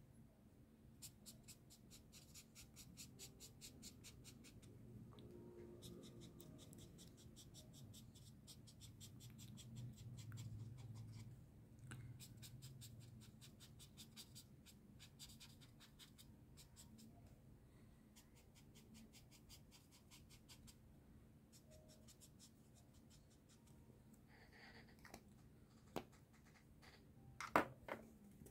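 Black ink marker scratching across sketchbook paper in runs of quick, short, repeated strokes, several a second, as it blocks in dark hatching. A faint low rumble in the middle, and a few sharp clicks near the end.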